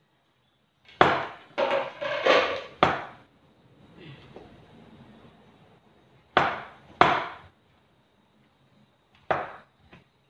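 Metal spoon knocking and pressing against a plastic tub while mashing cooked sweet potato: a quick cluster of knocks about a second in, two more around six to seven seconds, and two near the end, with soft scraping between.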